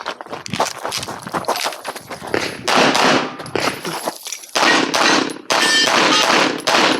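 Handgun fired in fast strings of shots during a practical-shooting stage, several shots a second, with short breaks between strings around the middle.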